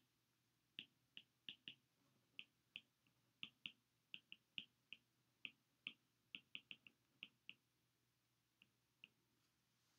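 Stylus tip tapping on an iPad's glass screen during handwriting: a string of faint, sharp, irregular clicks. They stop about three-quarters of the way in, with one more click near the end.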